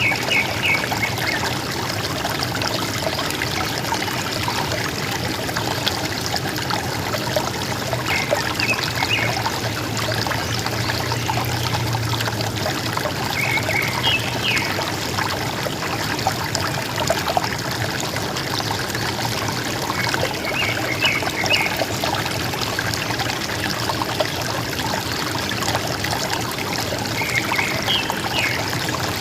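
Steady trickling and burbling of a small river. A bird repeats a short phrase of a few quick high notes about every six or seven seconds, five times in all.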